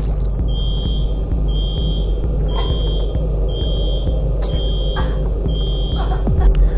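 Electronic alarm beeping: six short high-pitched beeps, about one a second, over a low steady drone.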